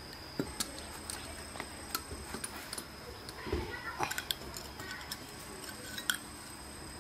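Sharp metallic clicks and ticks of a wrench working on a small electric water pump's threaded pipe fitting as it is loosened, with a short cluster of knocks and squeaks about halfway through. A steady high insect drone continues behind.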